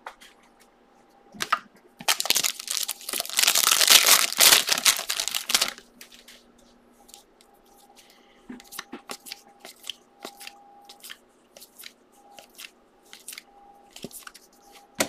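Foil wrapper of a trading-card pack being torn open and crinkled for a few seconds, then the cards being handled and flicked through, a string of light snaps.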